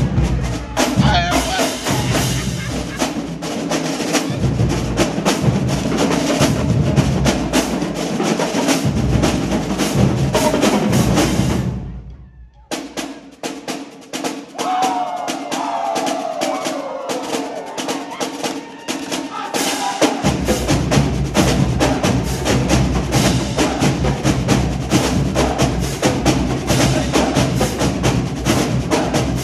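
HBCU-style marching drumline of snare drums, tenor drums, bass drums and cymbals playing a fast, dense cadence. About twelve seconds in the playing cuts off suddenly, stays softer without the bass drums for several seconds, then the full line comes back in about twenty seconds in.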